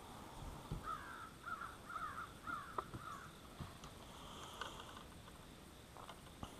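A faint crow cawing in a quick run of about five caws, starting about a second in. A few faint small clicks are also heard.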